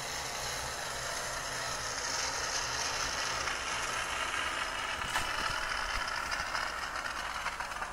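Ariete 4164 Multi Steam handheld steam cleaner blowing steam through its window nozzle onto the glass: a steady hiss that grows a little louder about two seconds in, with a fast, fine rattle in it toward the end.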